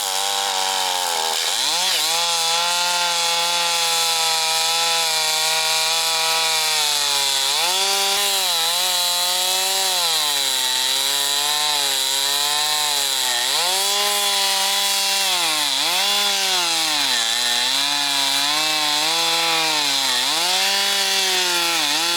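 Stihl MS362 two-stroke chainsaw running hard while cutting wood, its engine note dipping under load and picking back up again and again.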